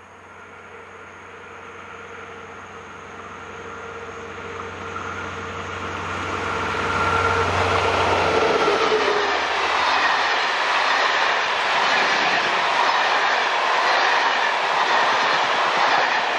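SNCF CC 72100-class diesel locomotive (CC 72186) approaching with its engine running and growing steadily louder. Its engine note drops slightly in pitch as it passes, about eight to nine seconds in. Then comes the steady rolling and wheel noise of the Intercités coaches passing close by.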